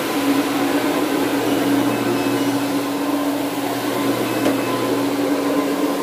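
Counter-rotating brush (CRB) carpet cleaning machine running with a steady motor hum as it scrubs the carpet, working the pet treatment into the pile.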